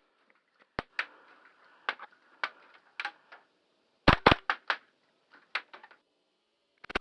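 Airsoft guns firing single shots: scattered sharp snaps a second or so apart, with a quick string of four about four seconds in.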